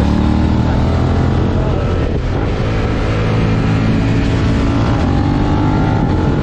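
Suzuki SV650X's 90-degree V-twin engine running through a Yoshimura R77 exhaust while the bike rides downhill, the engine note holding fairly steady with slight rises and falls in pitch.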